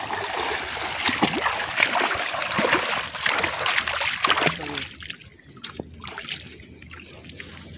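Water splashing and streaming off a fine-mesh shrimp seine net as it is hauled up out of shallow water. The splashing dies down about five seconds in, leaving quieter scattered drips and ticks.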